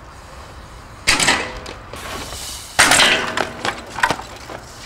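BMX bike crashing and clattering as a trick is bailed: two hard metal impacts about two seconds apart, each with a brief ring from the frame, then a sharper knock near the end.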